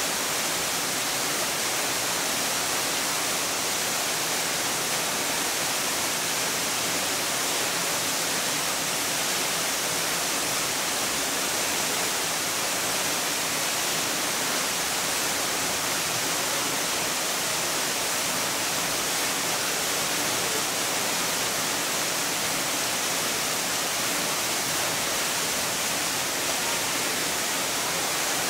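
Steady hiss of rain falling.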